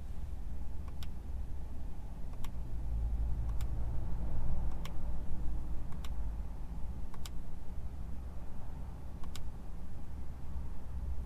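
Sharp single clicks every second or two as a steering-wheel control button is pressed, over a low steady hum in the car's cabin.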